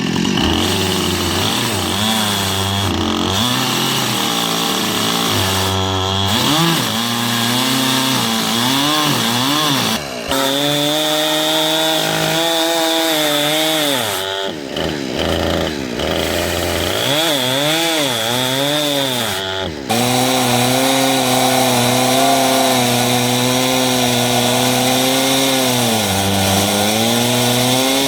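Small chainsaw with a standard crosscut chain, not a ripping chain, cutting lengthwise through a cedar log in a homemade Alaskan mill. The engine note repeatedly dips and recovers as it works under load, with short drops about 10, 15 and 20 seconds in, then runs steadier.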